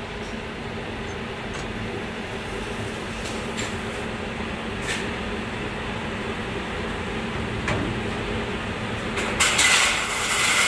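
Steady hum of the coating line's conveyor and heating-oven machinery, with a few faint clicks. Near the end a louder hiss starts and is the loudest sound.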